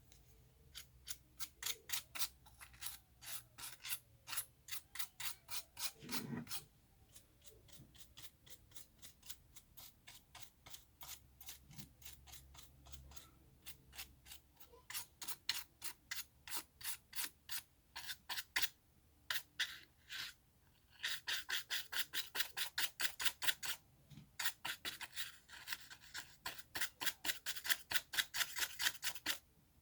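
Rapid rubbing strokes, as of a brush scrubbing dust from a laptop's interior, repeated at about two to four a second in runs with a few short pauses.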